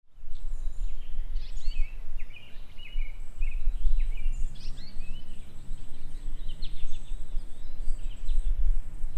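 Several songbirds chirping, a steady stream of short, quick twittering calls, over a continuous low rumble of outdoor background noise. The chirping is the timer's end-of-countdown alarm.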